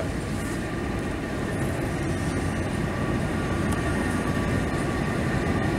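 GWR steam tank locomotive rolling slowly past at close range, bunker first: a steady low rumble of wheels on track that grows slightly louder as it nears.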